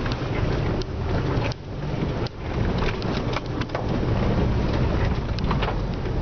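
Inside a four-wheel drive's cabin on a rough dirt track: a steady low drone of engine and tyres, with frequent sharp knocks and rattles at irregular intervals as the vehicle jolts over the bumps.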